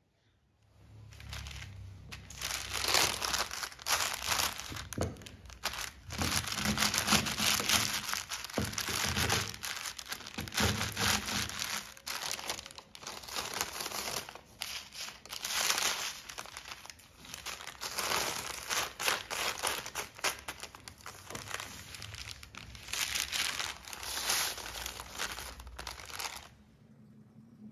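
Oreo cookies being crushed inside a folded sheet of paper: the paper crinkling and the cookies crunching in repeated, uneven bursts.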